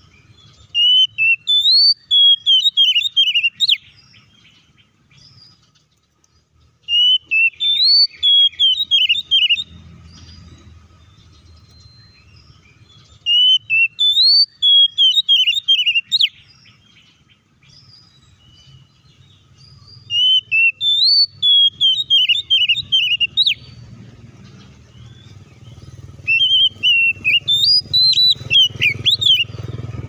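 Oriental magpie-robin (kacer) singing: five loud phrases of whistled, warbling notes, each about three seconds long and a few seconds apart. A low rumble builds in the background near the end.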